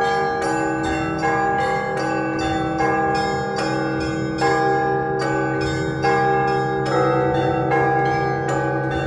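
Russian Orthodox church bells ringing a festive peal (prazdnichny zvon): smaller bells struck in a repeating pattern, a strong stroke about every 0.8 s, over the steady hum of the larger bells.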